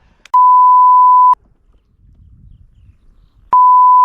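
Censor bleep: a steady, loud 1 kHz beep tone laid over the audio, about a second long, followed near the end by a second bleep that starts abruptly.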